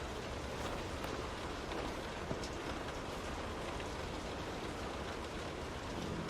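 Steady rain pattering on a window, a dense even hiss with scattered individual drop ticks and one sharper tick a little over two seconds in.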